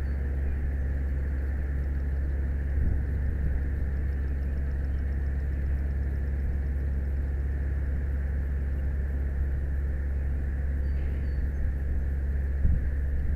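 Aerial ladder fire truck's engine and hydraulic system running, a steady low rumble carried up the extended ladder.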